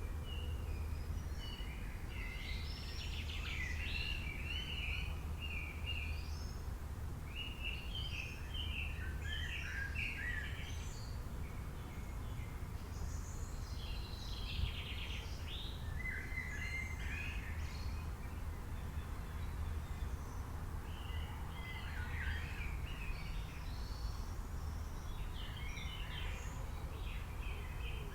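Songbirds chirping and singing in a forest, in bursts of quick short notes from several birds that come and go, over a steady low rumble.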